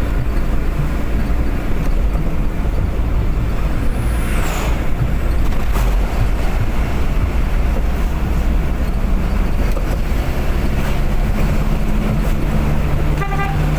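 Steady engine and road noise of a car driving fast on a highway, with a brief falling whoosh about four seconds in. Near the end a vehicle horn starts sounding in short repeated toots.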